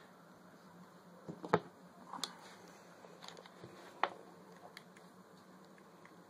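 A few short clicks and knocks as a brass coupler, PEX pipe and a crimp tool are handled, the loudest about a second and a half in, over a steady low hum.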